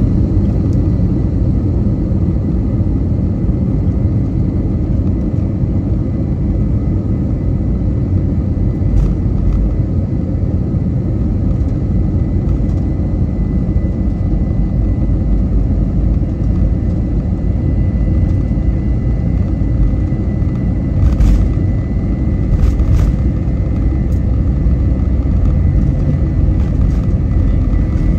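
Cabin noise inside an Airbus A321 during take-off: a steady, deep engine and airflow rumble with a faint thin whine over it. A couple of brief clicks come about two-thirds of the way through.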